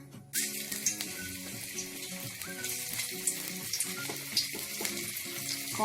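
Batter-coated cauliflower florets sizzling in hot oil, starting suddenly a moment in as they go into the pan, with scattered pops over a steady hiss. Faint background music underneath.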